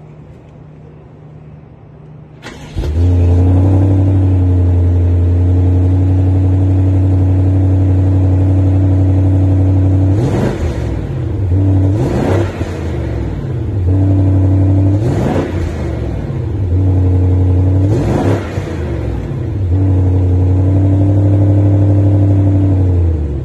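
BMW M550i's 4.4-litre twin-turbo V8 running at a steady idle through its exhaust, coming in loud about two and a half seconds in, then revved four times, the pitch sweeping up and falling back each time, before settling back to idle.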